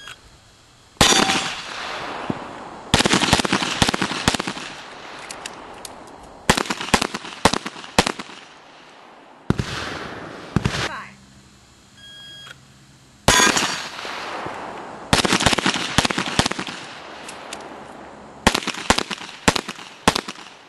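Handgun shots fired in rapid strings of several rounds, with pauses between the strings. A short electronic shot-timer beep sounds at the start and again about twelve seconds in.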